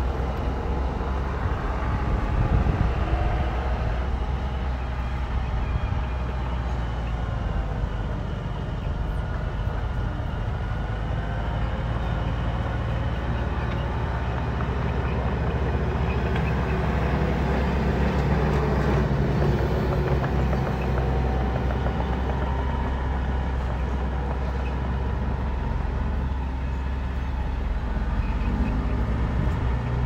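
Diesel engines of earthmoving machinery, a bulldozer and dump trucks, running steadily at work, the engine note rising and falling now and then.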